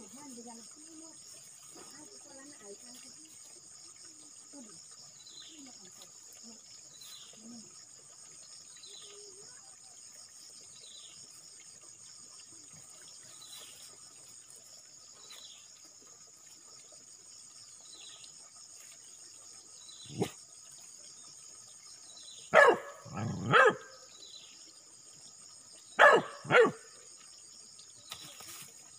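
Dogs barking at a python, several short barks in two pairs from about two-thirds of the way in. Under them runs steady insect chirring, with short chirps every couple of seconds.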